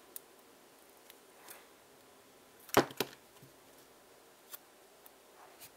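Electrical tape and small parts being handled on a tabletop: a few light clicks and taps, with two sharp clacks close together about three seconds in.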